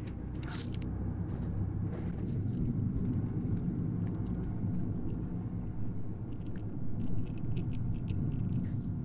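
War-film soundtrack played back through home-theater speakers: a muffled, steady underwater rumble, with short hissing streaks of bullets zipping through the water about half a second in, around two seconds, and near the end.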